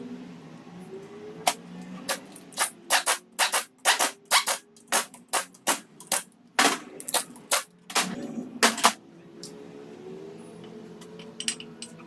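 Pneumatic wrench on an engine block run in about fifteen short, sharp bursts, tightening bolts during assembly. A few light metallic clicks near the end.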